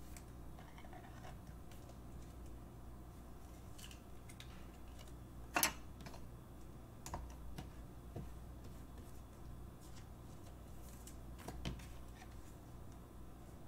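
Light clicks and taps of trading cards and a hard plastic card holder being handled and set down on a tabletop. One sharp click about five and a half seconds in is the loudest, with a few smaller taps after it.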